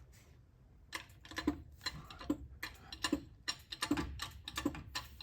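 Irregular metallic clicks and light knocks, several a second from about a second in, as a T15 transmission is worked and jiggled onto its guide studs.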